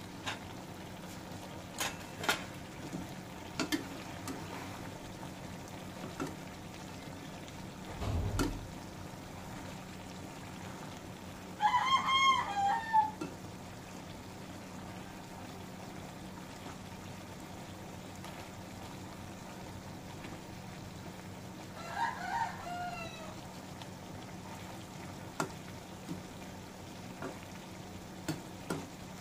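A rooster crowing twice: a loud crow about twelve seconds in and a fainter one about ten seconds later. Underneath is the steady low sound of the stew simmering in the wok, with scattered clicks and knocks of a spoon against the pan.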